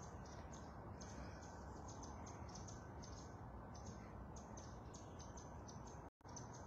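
Quiet background noise with faint, irregular high ticks, about two or three a second. The sound cuts out briefly near the end.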